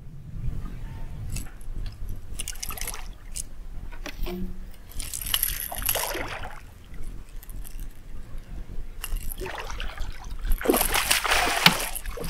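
Water splashing and sloshing in three bursts, the last and longest near the end.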